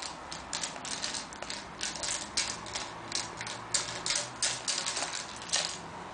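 Rapid, irregular clicking and tapping from a kitten batting a spring-mounted fur cat toy, the coiled wire spring rattling as it is knocked about.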